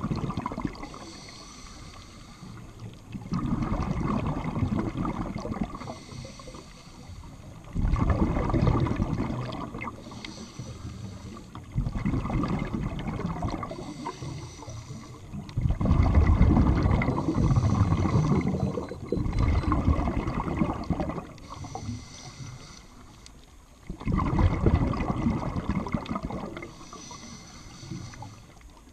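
Scuba diver breathing through a regulator underwater. Each exhalation is a loud bubbling rumble lasting a few seconds, and between exhalations comes the quieter hiss of the inhale. The cycle repeats about every four seconds, some seven breaths in all.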